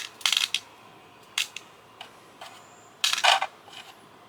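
Small pieces of scrap metal clinking and rattling in several short bursts, with the loudest cluster about three seconds in.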